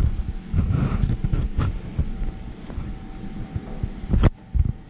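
Handling noise from a handheld camera being moved: low, uneven rumbling and rubbing with a few sharp knocks, the loudest a little past four seconds in. A faint steady hum lies underneath.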